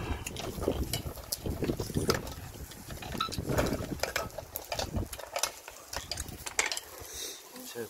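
Irregular clicks and clatter of kitchen scissors and oyster shells against a stainless steel pot as steamed oysters are handled and cut, over a low rumble that fades about five seconds in.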